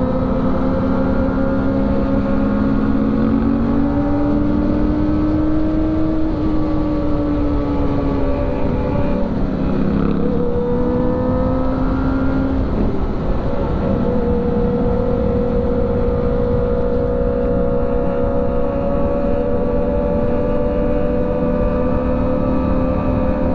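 Sport motorcycle engine running at cruising speed, its pitch drifting slowly up and down with the throttle and dipping about ten to thirteen seconds in before holding steady again, over constant wind and road rush.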